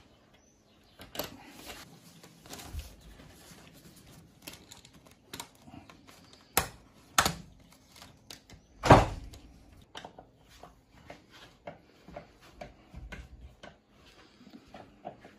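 Handling noise as a metal cable clamp is fitted and screwed around a bundle of cables in corrugated conduit: scattered clicks and light knocks, with a sharper knock about nine seconds in.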